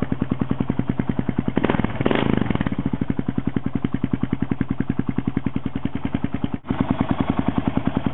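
Kawasaki KLR650 single-cylinder four-stroke idling through a Two Brothers M7 exhaust fitted with a P1X power tip: an even, rapid train of exhaust beats, still pretty loud. About two seconds in, a louder rush lasts around a second.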